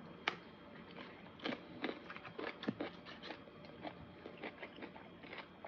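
A person chewing food close to the microphone: a string of short, irregular mouth smacks and clicks, with one sharper click about a third of a second in.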